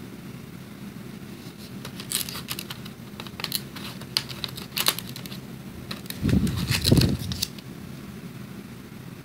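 Plastic watercolour pan trays clicking and clattering as they are handled and lifted from a plastic tray insert: a run of sharp light clicks from about two seconds in, then a dull low bump with more clicks between six and seven and a half seconds. A steady low hum runs underneath.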